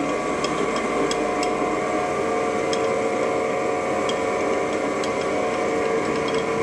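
DoAll V60 60-inch vertical band saw running without cutting, its 2 HP drive turning the blade on the big wheels in low gear at a slightly raised speed. It gives a steady hum of several tones, with light, irregular ticks.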